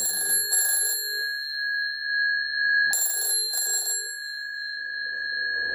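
A 1944 Bakelite WW2 field telephone's twin metal bell gongs ringing strident, in the double-ring cadence of a normal phone line: two short rings, a pause of about two seconds, then two more. The bell is driven off the line by an added ringer box, working as an extension bell.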